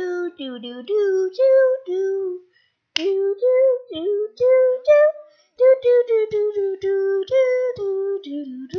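A person singing a tune without words, a run of short held notes stepping up and down, with a brief pause about two and a half seconds in.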